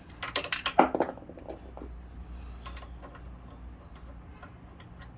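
3/8 socket ratchet clicking in a quick run of sharp metal clicks during about the first second as a bolt is backed out, followed by a few faint scattered ticks.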